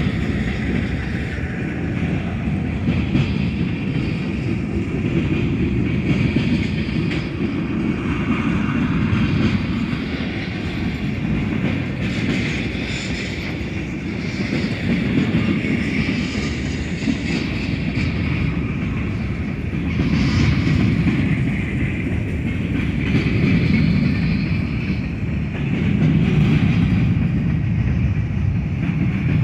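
Freight cars of a manifest train rolling past: steel wheels on rail with a steady low rumble and clacking over rail joints, swelling and easing every few seconds as the cars go by. A thin, steady high-pitched tone runs above the rumble.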